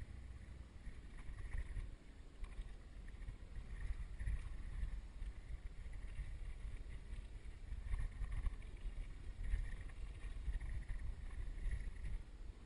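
Low rumble of wind on the microphone, with faint higher-pitched sounds coming and going.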